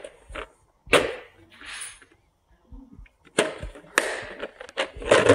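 Hard plastic tool cases being set down and shifted on a tool cart: several sharp knocks and clacks, with a short scrape between the first two.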